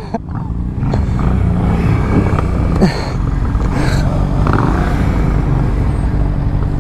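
Motorcycle engines idling at a standstill: a steady, low rumble.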